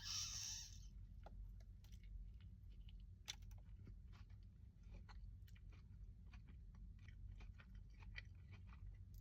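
Close-miked chewing of crunchy food, with a brief louder crunch at the very start and then a steady run of small crunching and wet mouth clicks.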